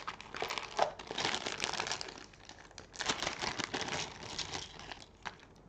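Small clear plastic zip bag of game pieces crinkling and rustling as it is handled, off and on, thinning out near the end.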